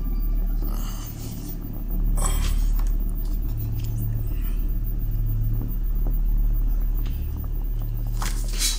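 Low, droning bass music of a suspense film score, its deep notes swelling and shifting every second or so. Paper rustles briefly about two seconds in, and again near the end as photographs are handled.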